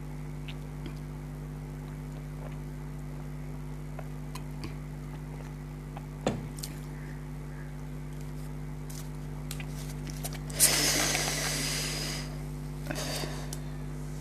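Close-miked eating of instant noodles: scattered small clicks and mouth noises, a knock about six seconds in, and a longer noisy rush lasting about a second and a half near eleven seconds, with a shorter one near thirteen. A steady low hum runs underneath.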